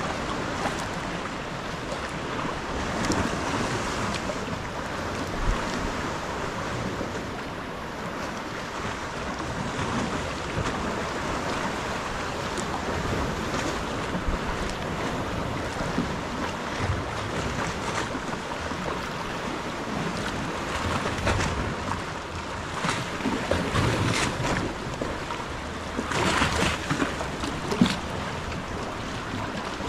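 Sea kayak paddling on a gentle swell: paddle blades dipping and splashing, water lapping around the hull, with wind on the microphone. A louder splash of water comes near the end.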